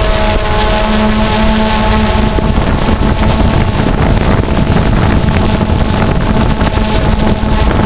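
Motors and propellers of a remote-controlled multirotor drone, heard from the camera on board: a steady whine with several held tones over a rush of air. From about two seconds in the tones break up into a rougher rushing noise with wind on the microphone, and they return near the end.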